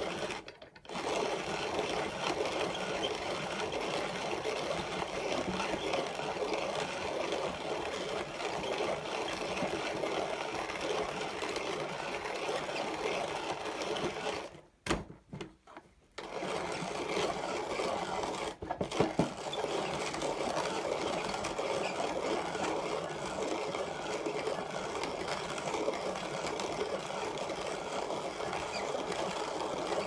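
Leinbrock's Ideal 1700/1 manual conical burr coffee grinder being hand-cranked, its burrs crushing coffee beans on the finest setting with a steady grinding crackle. The grinding stops briefly near the start and for a second or so about halfway through, and a few sharp clicks follow.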